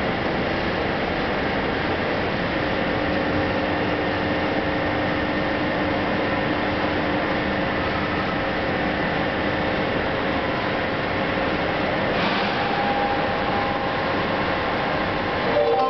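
Steady railway-station ambience: an even rushing noise with faint steady hums beneath it. It grows louder, with new tones, right at the end.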